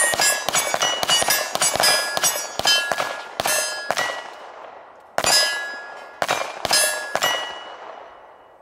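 Rapid pistol shots with steel plate targets ringing as they are hit, clang after clang for about four seconds. After a short lull comes a second cluster of shots and rings, and the ringing fades away near the end.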